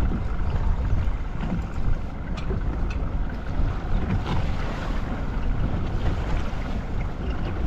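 Wind buffeting the microphone over steady sea and boat noise aboard a small fishing boat, with a few faint clicks.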